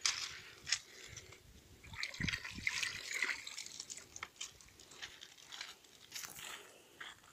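Water sloshing and splashing lightly in a plastic paddling pool, in irregular small splashes and drips, busiest about two to three and a half seconds in.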